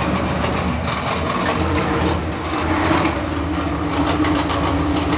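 Ford 352 V8 engine running steadily at idle, a once-seized engine now freed, with its fuel pump not working.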